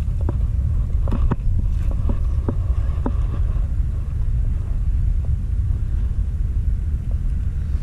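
Low, steady rumble of wind buffeting the camera microphone, with several light clicks and taps of handling in the first three seconds.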